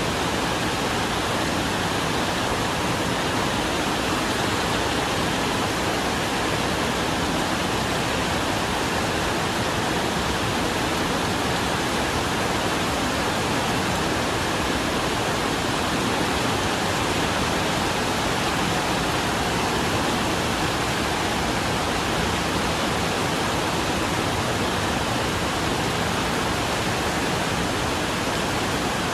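Steady rain falling on a corrugated iron porch roof, an even, dense hiss with no let-up.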